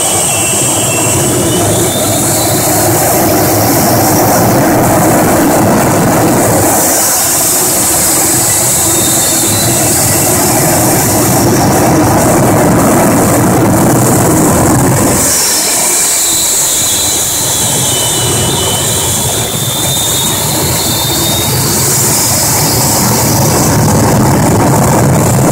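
Jet dragster's turbine engine running while the car stands still: a loud, steady rush with a high whine that rises and falls several times.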